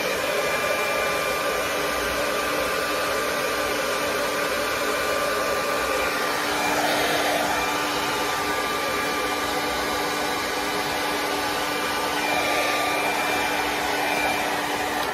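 Handheld hair dryer running steadily: a rush of air with a steady motor hum and whine, swelling a little now and then as it is moved about the hair. It switches off right at the end.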